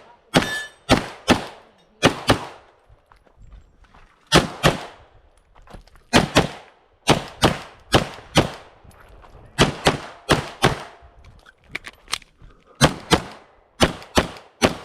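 Pistol shots fired in quick pairs during a timed competition string, about twenty in all, with short gaps between the groups.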